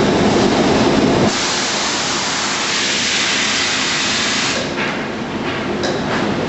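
Loud, dense shop-machinery noise that cuts abruptly, about a second in, to a steady hiss of compressed air lasting about three seconds, followed by a couple of short knocks.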